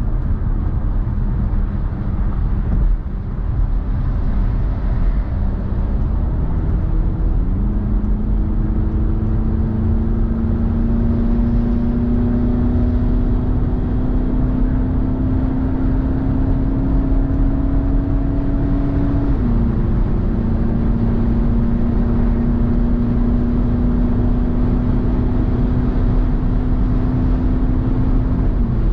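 Car driving at motorway speed: steady road and tyre rumble under an engine hum that climbs slowly in pitch as the car accelerates. The hum drops briefly at gear changes, once about two-thirds of the way in and again at the end.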